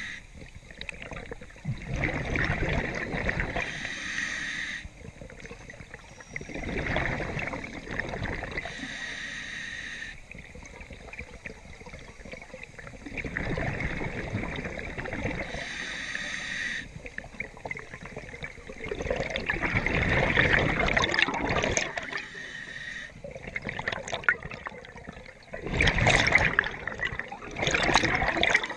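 Scuba regulator breathing underwater: a short hiss of each inhalation through the regulator, then a long rush of exhaled bubbles, repeating about every five to six seconds.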